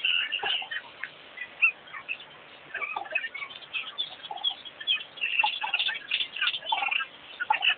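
Many small birds chirping, short high calls overlapping in a busy chorus, with a brief lull about two seconds in.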